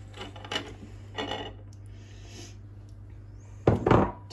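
Icing sugar poured from a ceramic bowl into a stainless steel stand-mixer bowl, with two short soft rustles. Near the end comes a quick cluster of loud clunks as the stand mixer's tilt-head is lowered and seated, its beater dropping into the bowl.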